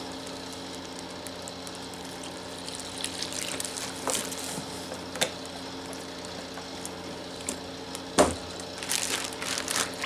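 Water trickling from a plastic jug into a zip-top plastic bag in the first seconds. About eight seconds in there is a single thump, followed by plastic bag crinkling as the bag is zipped shut near the end.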